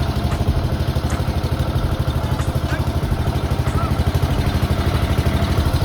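A vehicle engine idling steadily with an even, rapid low throb.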